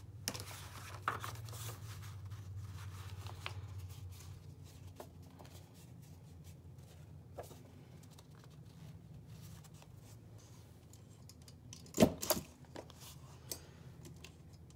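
Paper book pages rustling and shifting as they are handled. About twelve seconds in, two sharp knocks close together.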